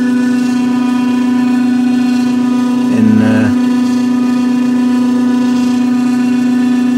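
GE refrigerator's failing evaporator fan motor running with a loud, steady hum. The noise is the sign of a worn evaporator fan motor that needs replacing.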